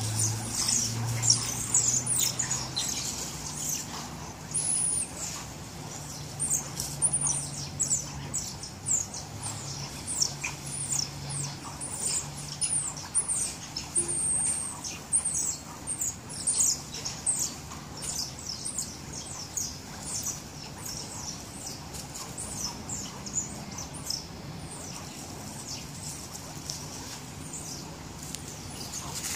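Rapid high-pitched chirping: many short calls that slide downward, packed closely together, thinning out over the last few seconds.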